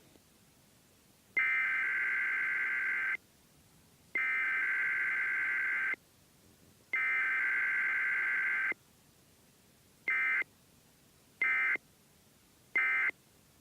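Emergency Alert System SAME data tones for a Required Weekly Test: three long, identical bursts of the buzzing digital header, a second or so apart, then three short end-of-message bursts.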